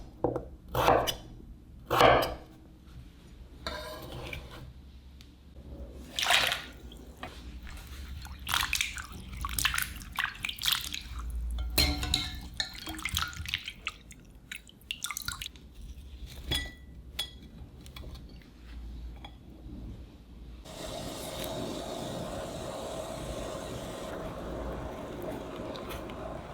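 Water splashing and dripping as cut potatoes are handled in water, with scattered knocks against the bowl or pot. About three quarters of the way in, a steady rushing noise takes over.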